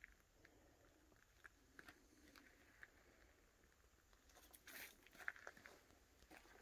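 Near silence with faint scattered crunches and clicks, a few of them louder about five seconds in.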